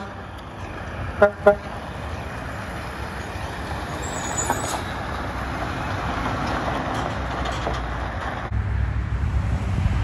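Two short toots of a truck horn, then a Mack concrete mixer truck's diesel engine and tyres running as it pulls past close by. Near the end the sound changes suddenly to the deeper rumble of another truck's engine.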